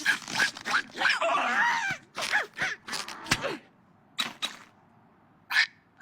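Cartoon bird squawks and calls: a dense run of squawks with sliding pitch in the first two seconds, then a few short, sharp calls with quiet gaps between them.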